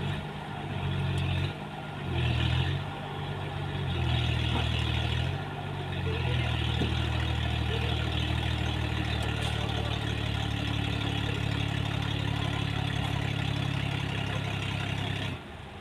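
An engine running, surging up in several short bursts, then held at a steady higher speed for about nine seconds before it drops off sharply.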